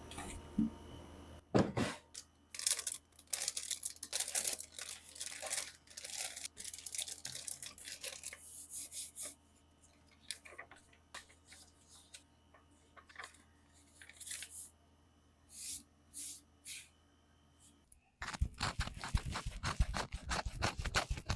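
Plastic packaging of an MG Freedom 2.0 Gundam model kit being handled: stop-start crinkling and tearing with small clicks, thinning out midway, then a dense run of rapid crackling near the end.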